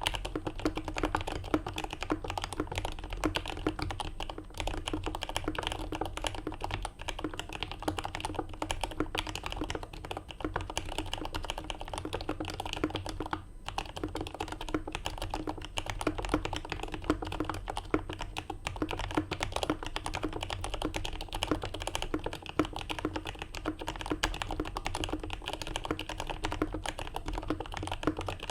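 Fast, continuous typing on a CA66 mechanical keyboard with lubed Turquoise Tealios linear switches in an aluminium plate and GMK Minimal keycaps, with many keystrokes a second and a brief pause about halfway through.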